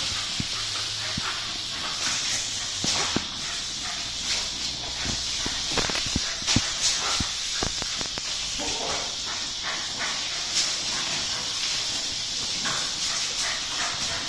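Water spraying from a garden hose in a steady hiss, with dogs playing in the spray and scattered sharp knocks.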